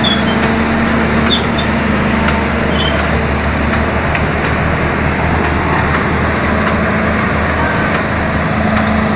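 Caterpillar 320 BL long-arm excavator's diesel engine running steadily as the machine travels forward.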